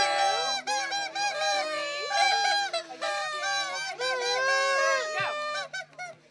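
Several children shouting and shrieking at once, high-pitched overlapping voices that fade out near the end.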